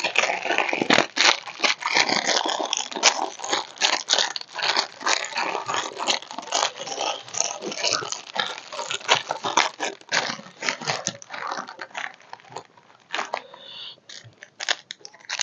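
Plastic snack wrapper being crinkled and torn open by hand: a dense run of crackles that thins out after about twelve seconds.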